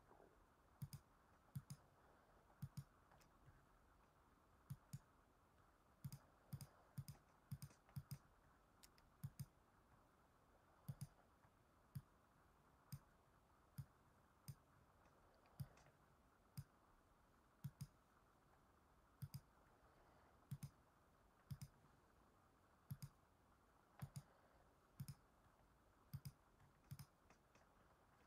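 Computer mouse button clicking at irregular intervals, often as quick pairs of clicks, over faint room hiss.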